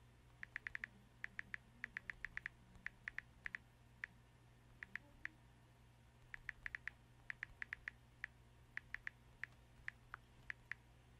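Smartphone keyboard clicks as a text message is typed: short, faint clicks in quick irregular runs, with pauses between them.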